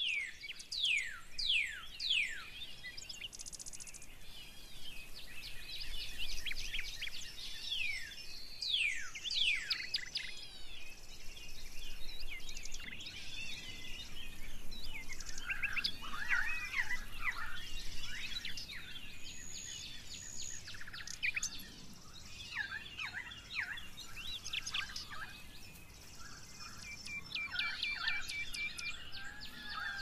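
Several songbirds singing and chirping. Many of the notes are quick downward-sweeping whistles, and a fast, even trill comes near the end.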